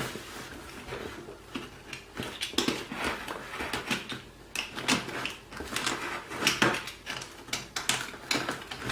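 Packaging of a RAM module kit being cut open with a utility knife and handled: irregular scrapes, crackles and clicks.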